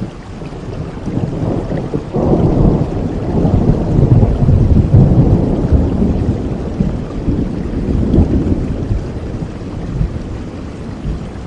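Steady rain with a rolling clap of thunder that breaks about two seconds in, rumbles for several seconds and dies away near the end.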